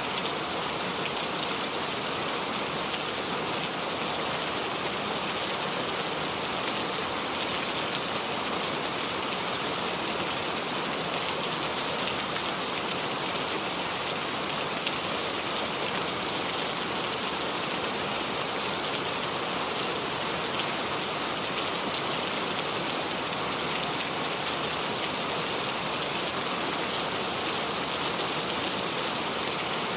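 Rain falling steadily on a roof, a dense, even hiss of drops with no thunder.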